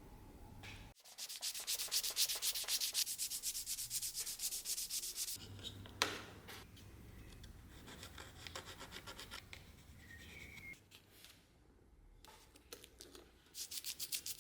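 Hand sanding: quick, even back-and-forth strokes of abrasive on a workpiece, a run of about four seconds starting about a second in and a shorter run near the end. A single sharp tap comes about six seconds in.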